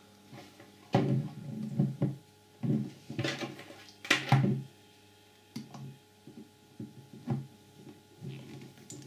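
Plastic case of an Apple MagSafe power adapter being prised apart with flat pliers: scattered clicks, scrapes and handling knocks, with sharp snaps about three and four seconds in as the case's internal clips pop loose.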